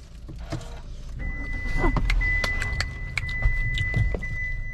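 Car interior: a steady low engine and road rumble. A thin, steady high-pitched tone starts about a second in, breaking off briefly now and then, and there are scattered light clicks.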